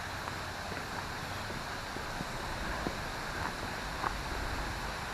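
Steady rushing of flowing water from a stream running down to a waterfall, with a few light clicks.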